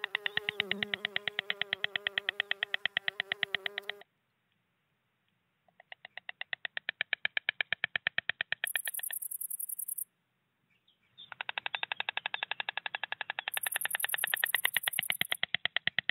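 White stork bill-clattering: rapid trains of wooden clacks at about ten a second, in three bouts broken by short silences. A wavering tone sounds under the first bout, and brief high hissing bursts come twice.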